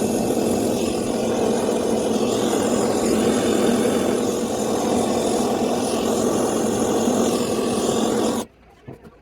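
Handheld gas torch burning with a steady, loud rush of flame while firing Art Clay Silver. The flame is shut off, and the sound cuts off suddenly about eight seconds in.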